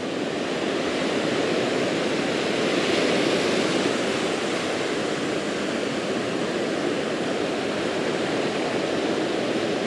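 Ocean surf: waves breaking and foamy wash running up the sand, a steady rush that swells a little about three seconds in.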